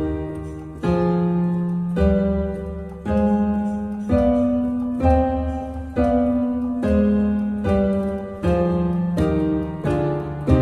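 Roland A-90 keyboard's piano voice playing a run of block chords, about one a second, each left to ring and fade before the next. The chords step up and then back down: the triads built on each degree of a harmonic minor scale.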